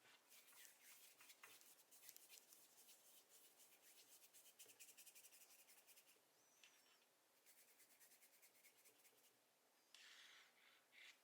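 Faint rubbing of hands rolling and shaping Play-Doh on a hard surface, a quick run of soft strokes.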